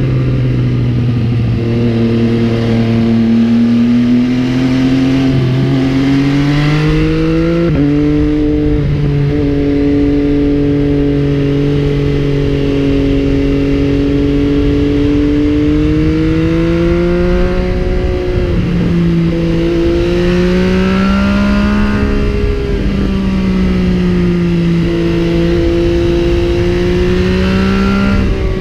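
MV Agusta Brutale 800's three-cylinder engine heard while riding, its pitch climbing and falling with the throttle. The pitch jumps suddenly twice, at gear changes.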